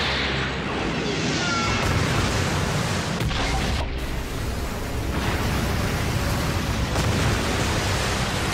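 Anime battle sound effects of a massive sword strike: a continuous explosion-like rush of noise with music beneath it, thinning briefly about four seconds in.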